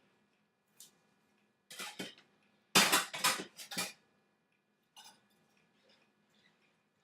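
Several short bursts of clatter, like tableware being handled: a few light knocks, then a louder run of rattling strokes about three seconds in lasting about a second, and a faint one near five seconds.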